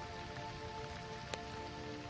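Heavy rain falling steadily on a road, an even hiss with individual drops ticking close by and one sharper drop hit just past the middle. Steady held tones sound softly underneath and shift pitch partway through.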